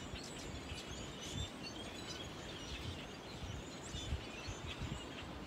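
Outdoor background noise: a steady low hum with faint bird chirps scattered through it.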